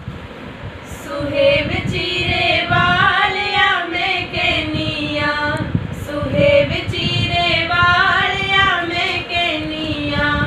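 Female voice singing a Punjabi folk song (lok geet), holding long drawn-out notes that glide up and down.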